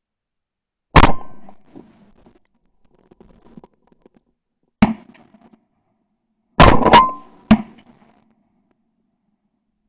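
Five shotgun blasts, each a sharp, very loud report with a short echoing tail: one about a second in, another near the middle, then two in quick succession and a fifth just after.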